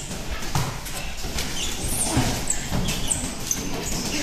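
Boxing sparring: gloved punches landing with dull thuds, and sneakers giving short high squeaks on the ring canvas many times over.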